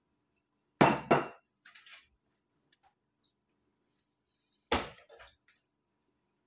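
A ceramic soup bowl with a metal spoon in it set down on a wooden counter: two sharp clinks close together about a second in, a few faint ticks, then another sharp clink with a smaller one just after near five seconds.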